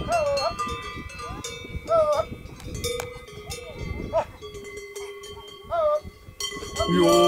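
Goat bells ringing on a grazing herd of Valais Blackneck goats, with a goat bleating four times. Yodelled music comes in near the end.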